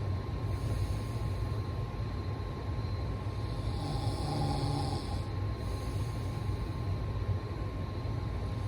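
A person snoring: one drawn-out snore about four seconds in, part of a cycle repeating roughly every five seconds, over a steady low rumble.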